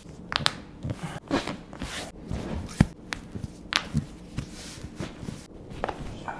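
Handling sounds from a chiropractic adjustment: rustling and rubbing with an irregular string of sharp clicks, the loudest a knock about three seconds in.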